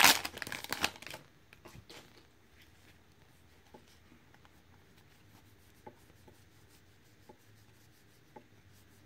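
Foil wrapper of a baseball card pack crinkling as it is torn open, stopping about a second in. Then a faint tick now and then as the cards are slid one by one through the hands.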